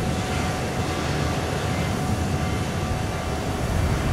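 Steady airport apron noise: a constant low rumble of jet aircraft with a faint steady whine over it.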